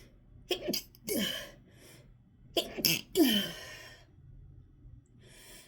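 A person sneezing twice in a sneezing fit, each sneeze a quick catch of breath and then a burst that falls in pitch; the second is louder. A softer breath in follows near the end.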